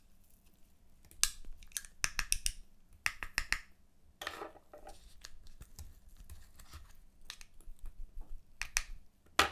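Gloved fingers digging a plastic toy piece out of crunchy fake-snow crystals in a plastic cup: irregular crisp scrapes, crunches and clicks.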